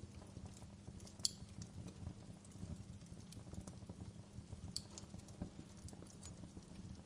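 Fire burning, with a steady low rumble under irregular small crackles. Two sharper pops stand out, about a second in and near five seconds.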